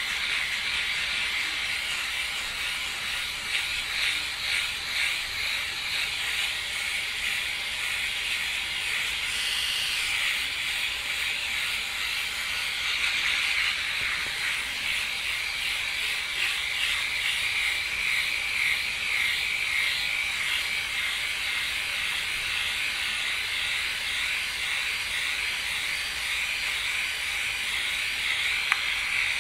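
Flawless Legs battery-powered electric leg shaver running, a steady high-pitched whirring hiss as its rotary head glides over the skin of a leg.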